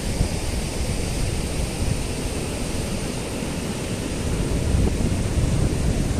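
Surf breaking and washing up a sandy beach in a steady rush, with wind rumbling on the microphone underneath.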